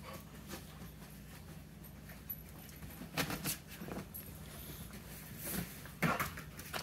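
Puppies play-wrestling on a large dog bed: scuffling and a few short, sudden noises from the dogs, loudest about three seconds in and again near the end, over a steady low hum.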